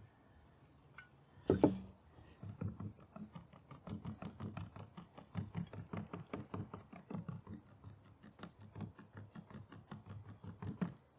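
A flat wooden craft stick stirring thick acrylic paint in a plastic cup, scraping and knocking against the cup in a quick, steady rhythm of a few strokes a second, as water is mixed in to thin the paint. A single sharper knock comes about a second and a half in, just before the stirring starts.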